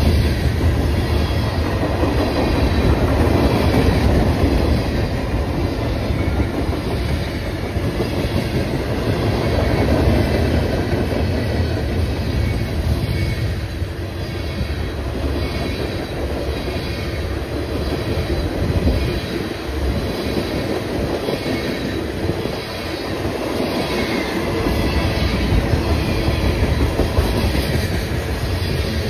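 A train rolling past: a steady, heavy rumble of wheels on rails, with faint high squealing tones from the wheels.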